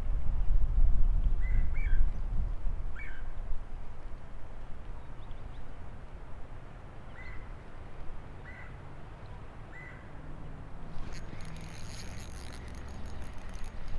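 A bird calling in short chirps, about six times, over a low rumble that is strongest at the start and fades. About three seconds before the end, close-up clicking and rattling from a hand working a spinning reel.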